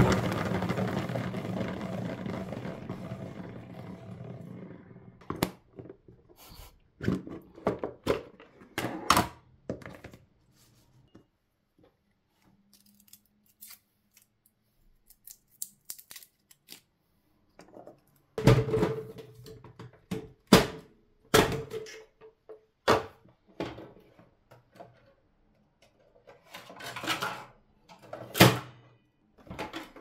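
Salad spinner's plastic basket whirring and slowing down over about five seconds. It is followed by scattered knocks and clicks of kitchen things handled on a countertop, including plastic food-processor parts set down in the second half.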